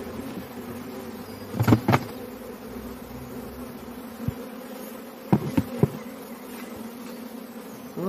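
A mass of honeybees buzzing steadily, with sharp knocks in two clusters, a few at a time, as the green transport box is tapped and shaken to tip the bees out into the hive.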